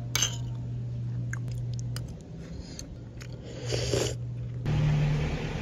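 A metal spoon clicking against a ceramic bowl and scooping thick coconut-milk dessert with rice balls, with wet eating sounds, over a steady low hum. A louder steady noise comes in near the end.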